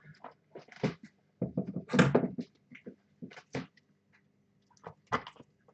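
Scattered knocks and clatter of objects being handled on a workbench: a handful of short, sharp sounds, the loudest about two seconds in.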